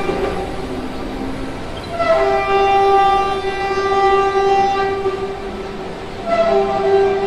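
Deep, horn-like blasts, each held steady for a few seconds, with several overtones above one low note. One is dying away at the start, a second begins about two seconds in and fades about three seconds later, and a third begins near the end.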